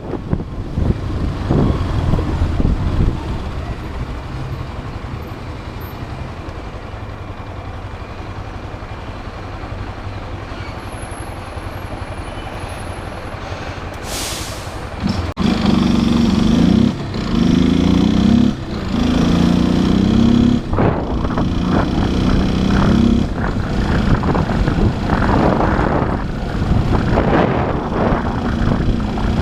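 Motorcycle engine running at low revs, then a brief hiss about halfway through. The engine is then revved up through the gears, its pitch rising in steps with short drops at each shift, and runs on steadily under load.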